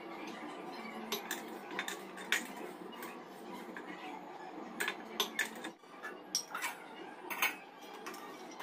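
Stainless steel pots and a lid clinking and knocking together as they are handled on a kitchen counter, with about ten sharp clinks spread irregularly over a steady background hum.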